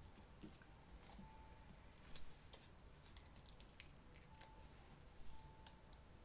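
Faint, scattered light clicks and rustles of paper collage pieces being handled and laid on a canvas.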